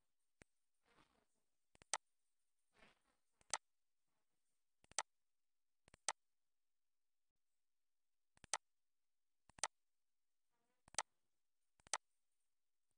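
Computer mouse button clicks, each a quick press-and-release double click, about nine of them spread irregularly, with faint brief rustles between some.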